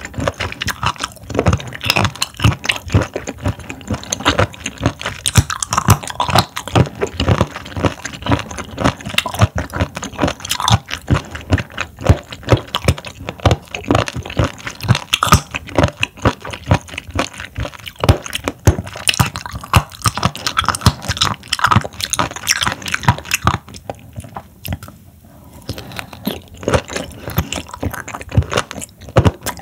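Close-miked chewing and crunching of raw seafood (horn conch, sea squirt and scallop sashimi), with wet clicks and crunches, briefly easing off about three-quarters of the way through.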